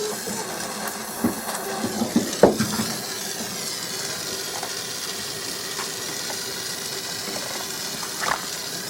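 Steady hiss with several short knocks and clinks, the loudest about two and a half seconds in and another near the end.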